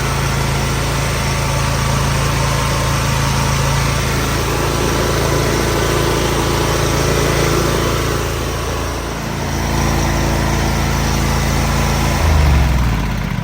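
27 hp Kawasaki V-twin mower engine running steadily, now starting after a starter repair that cured the no-start. About nine seconds in its speed dips briefly and recovers; near the end it gives a short louder, lower surge and then winds down as it is shut off.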